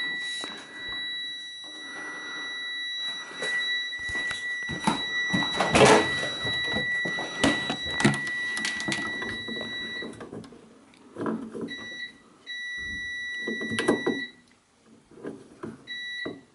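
Multimeter continuity tester beeping with a steady high tone through the fridge thermostat's switch contacts, cutting out about ten seconds in and coming back in short stretches as the thermostat is turned: the thermostat is switching on and off, so it is working. Clicks and knocks run through it.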